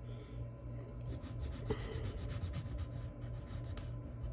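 Wooden Ticonderoga graphite pencil shading on paper, filling in small areas solid dark: a faint, scratchy rasp made of many quick, short strokes.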